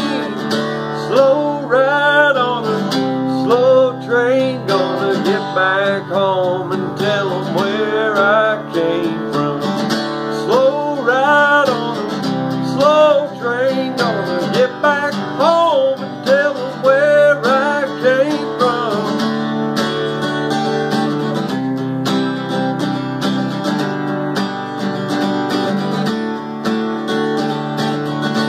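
Acoustic guitar playing an instrumental break in a country song: picked lead lines with bending notes for the first two-thirds, settling into steadier chords near the end.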